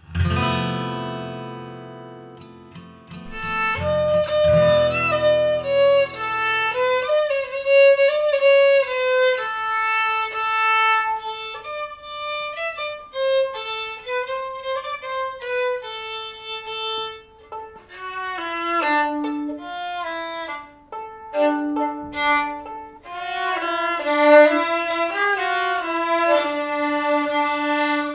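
Violin playing a folk melody, one stepping tune line with a short pause about two thirds of the way through. At the very start a low chord is struck and rings, fading out over the first several seconds under the fiddle.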